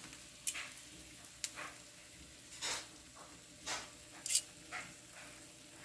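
Faint sizzle of dried herring frying in shallow oil, broken by about six short crackles and taps as metal tongs lift the fish out of the pan.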